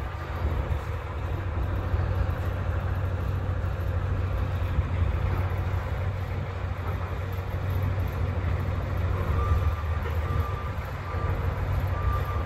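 Heavy diesel truck engine idling with a steady low rumble. A faint high whine comes and goes near the end.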